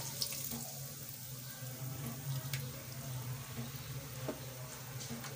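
Hot tempering oil with cumin, dried red chillies and green chillies sizzling as it is poured over thick yogurt kadhi and stirred in with a wooden spoon, with a few small ticks. A steady low hum runs underneath.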